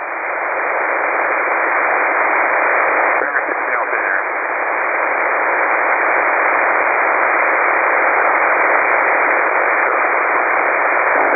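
Shortwave receiver hiss on an open upper-sideband aeronautical HF channel: steady static between transmissions, squeezed into the narrow voice passband. A faint voice breaks through the noise briefly about three seconds in.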